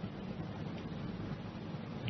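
Steady background hiss with a low hum underneath: the noise floor of a speech recording during a pause.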